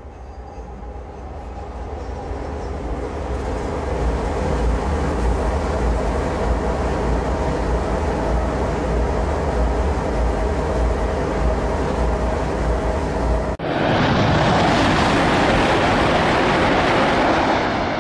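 CRH380A high-speed electric train passing on an elevated line: a rushing noise with a low rumble that builds over the first few seconds and then holds steady. About three-quarters of the way in, an abrupt cut brings a louder, brighter rush as the train runs by again.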